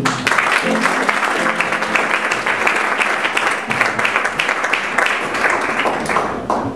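Audience applauding, breaking out all at once and thinning out near the end, with the last notes of the backing music heard at first.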